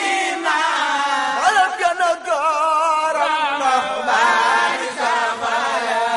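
Unaccompanied voices chanting a song, with a wavering, ornamented melody.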